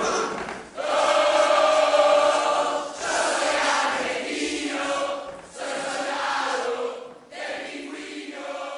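A choir of many voices singing in four phrases with short breaks between them, growing quieter toward the end as the song fades out.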